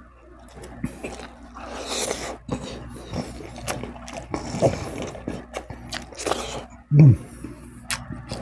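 Close-miked eating noises: chewing and mouth clicks, mixed with fingertips scraping and tapping on a wooden plate while picking up loose rice grains. A brief low thud about seven seconds in is the loudest sound.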